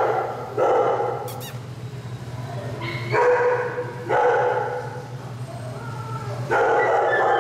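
Dog barking about four times, each bark ringing on and dying away in the echoing kennel, over a steady low hum.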